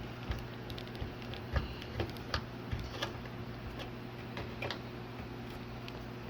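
Old double-sided adhesive tape being peeled off a TV's backlight panel by hand, giving scattered small ticks and clicks, about one every half second, fewest toward the end.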